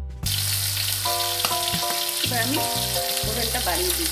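Turmeric-rubbed whole fish sizzling as they shallow-fry in hot mustard oil in an iron wok. The sizzle starts suddenly about a quarter second in, with soft background music under it.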